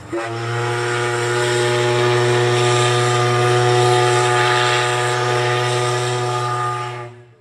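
A large ship's horn giving one long, low, steady blast of about seven seconds.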